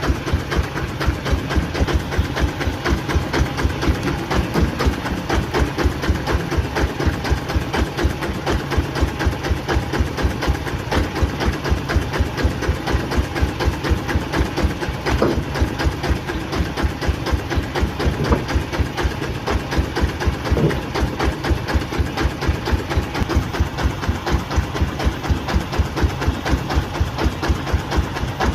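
An engine running steadily, with an even, rapid thumping beat of about four to five pulses a second.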